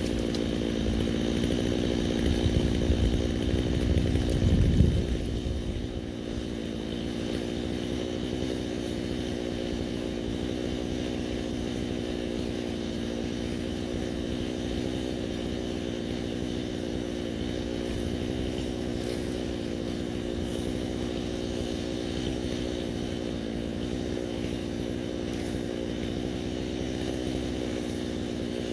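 Stihl MS 250 two-stroke chainsaw running at a steady, even engine note, with a louder low rumble for the first five seconds or so.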